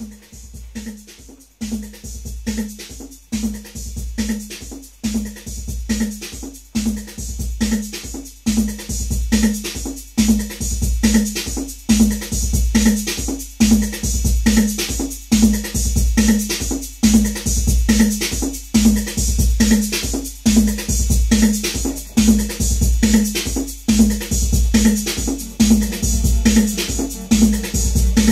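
Detroit-techno jam on a Roland TR-808 drum machine and a Roland Jupiter-6 synthesizer: a steady drum-machine beat with a repeating synth note, fading in over the first several seconds.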